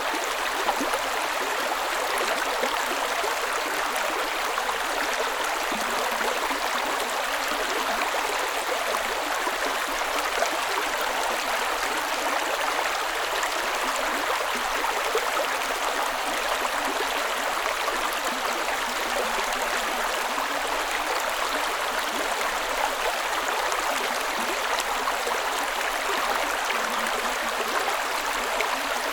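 A creek running over rocks, with a steady, even rush of water and no breaks.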